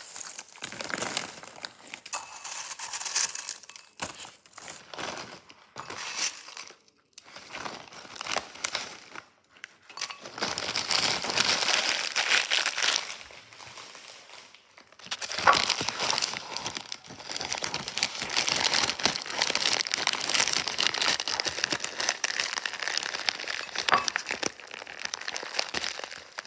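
Crinkly foil-and-plastic snack bags being handled and crumpled, in short bursts at first and then in long, near-continuous stretches of rustling.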